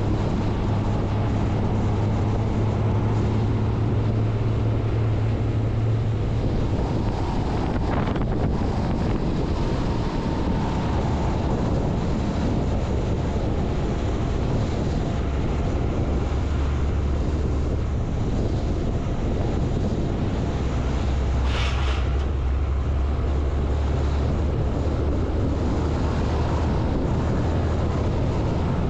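MAN LE 280 B 4x4 truck's diesel engine running as it drives along a gravel road, heard from the cab roof with wind buffeting the microphone and tyre rumble underneath. The low engine note drops lower a few times, and there is a brief sharp knock about two-thirds of the way through.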